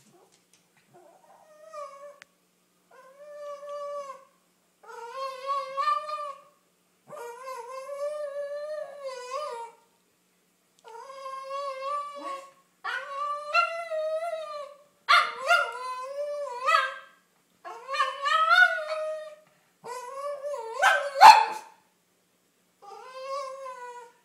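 Cavalier King Charles Spaniel vocalizing in a string of drawn-out, wavering whining howls, about a dozen calls with short pauses between, growing louder after the first few and loudest a few seconds before the end. It is begging to go for a car ride.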